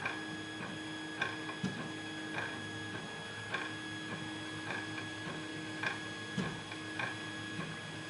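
Faint, irregular metallic clicks of a lock pick lifting pins in the NeoSapien #23 pin-tumbler cylinder under tension, about one every half second to a second, one of them the small click of pin 3 setting with a counter-rotation of the plug. A steady electrical hum runs underneath.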